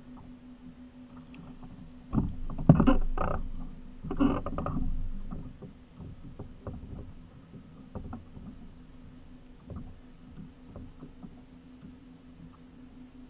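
Splashing and knocking in a rush of bursts from about two to five seconds in, as a short striped bass is swung out of the water and into the kayak; afterwards only faint scattered clicks as the fish is handled.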